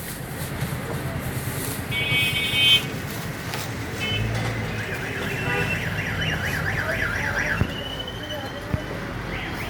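Street traffic noise with a short vehicle horn toot about two seconds in, then a fast warbling electronic tone like a car alarm or siren through the middle.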